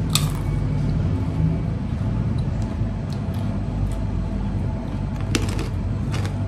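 A steady low mechanical hum, with a few short clicks near the end.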